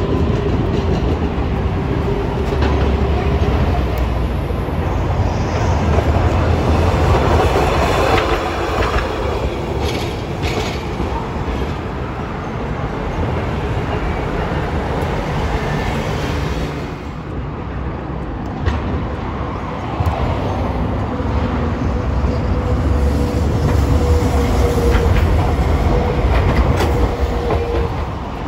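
Hiroshima Electric Railway streetcars running on street track amid city traffic: a steady rumble of wheels on rail, with a steady hum from a passing tram.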